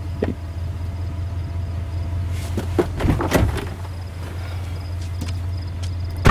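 A stopped GMC SUV's engine idles with a low, steady hum. Clunks and rustling come about three seconds in as a passenger climbs out, and the car door slams shut loudly at the end.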